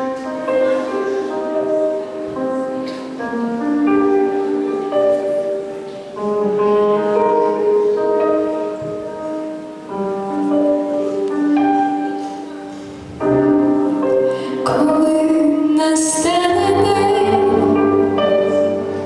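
A female voice singing a melody with musical accompaniment, holding long notes.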